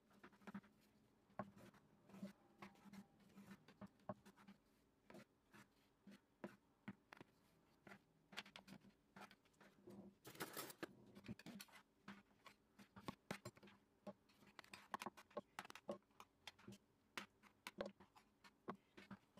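Knife cutting through the crisp baked crust of a sesame-topped pastry in an aluminium tray: a run of small, irregular crackles and scrapes, with a longer scrape about ten seconds in. A faint low hum sits underneath.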